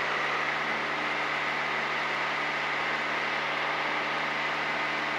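Steady drone of a Piper PA-28's piston engine and propeller in level flight, unchanging in pitch.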